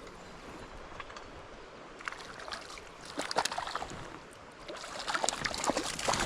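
Creek water running steadily, with a run of splashing and sloshing starting about two seconds in that comes in two louder clusters, the second near the end.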